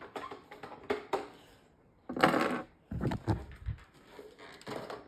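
Handling noise from a phone being picked up and moved: scattered clicks and knocks, a short rustling burst about two seconds in, then a few low thumps.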